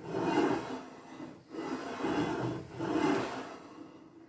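Radial drill spindle being slid back and forth by hand inside its freshly bored bearing, metal rubbing on metal in about four strokes roughly a second apart, growing fainter near the end. The spindle now slides freely in the cleaned-up bore.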